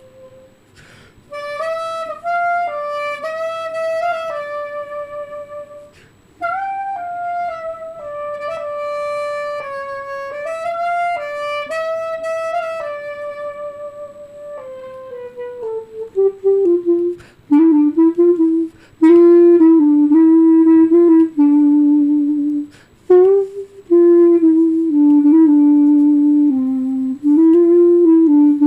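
Solo clarinet playing a slow melody without accompaniment. Phrases in a higher register give way, about fifteen seconds in, to a downward slide into the low register, where the notes come shorter and more separated.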